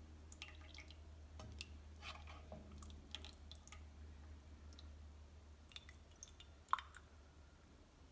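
Faint wet dripping and small clicks of a ladle scooping thick rabdi (sweetened thickened milk) from a steel pot and pouring it into a small clay pot, with one sharper click about two-thirds of the way through, over a low steady hum.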